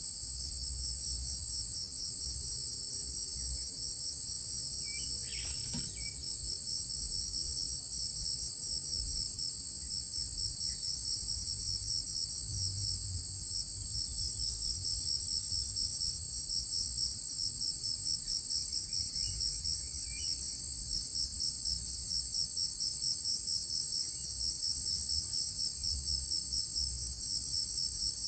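A steady chorus of insects trilling in a high, evenly pulsing drone. A brief click comes about six seconds in.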